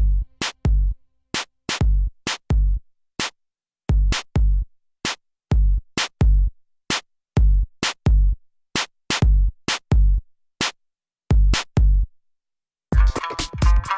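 Music: a sparse electronic drum-machine beat of deep kick drums and sharp high hits. It stops for about a second near the end, then comes back with fuller pitched instrumental backing.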